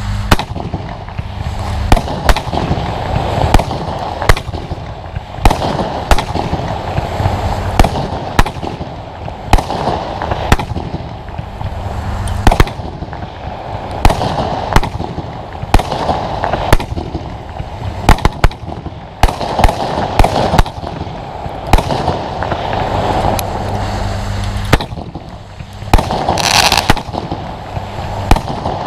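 Compound firework cake firing a continuous sequence of shots: sharp bangs about every one to two seconds over steady crackling, with a brief high hiss about two-thirds of the way through.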